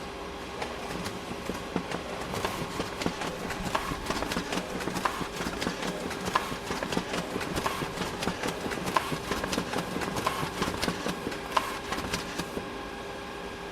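Photocopier running: its steady fan hum carries throughout, and from under a second in until about a second before the end, a rapid, irregular clicking and clattering of its paper-handling mechanism sits on top, then it settles back to the hum alone.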